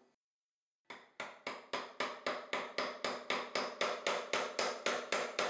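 Light, even hammer taps, about four a second, starting about a second in, driving the nail of a plastic furniture glide into an oak chair leg.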